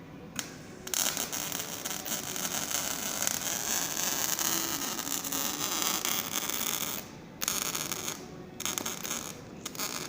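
Electric welding on the truck's fuel tank: a harsh crackling hiss that starts about a second in and keeps going in long stretches, then breaks off briefly three times near the end as the welder stops and restarts.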